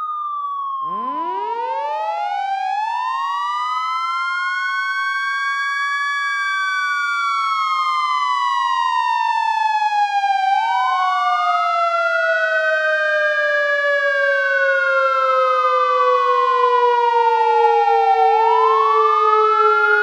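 Fire truck sirens sounding together. One wails slowly up and down, about eight seconds per cycle. A second siren winds up from a low pitch about a second in, then slowly sinks in pitch, and the whole sound grows louder.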